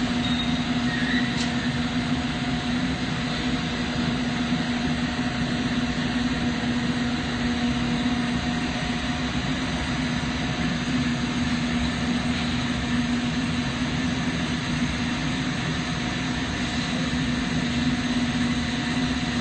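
Steady noise of a glassblowing hot shop: lampworking torch flame and ventilation running, with a constant low hum throughout.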